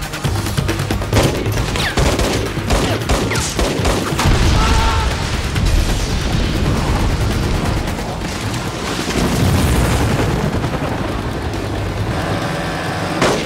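Action-film gunfight mix: rapid automatic gunfire and booming blasts over background music.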